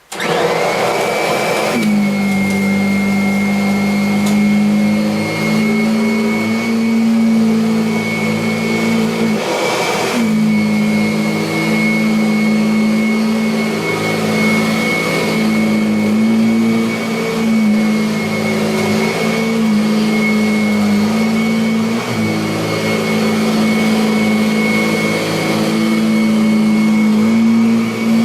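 Kirby Avalir upright vacuum cleaner switched on and running on carpet. Its motor winds up to a steady high whine within the first two seconds, and the lower hum wavers in pitch as the load changes, with a brief bump about ten seconds in.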